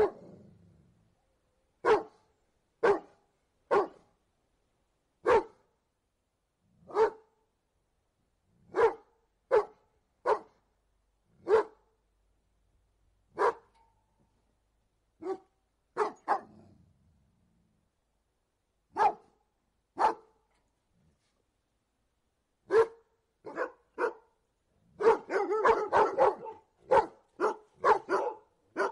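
A dog barking in single, short barks about one to two seconds apart, then a fast run of crowded barks near the end.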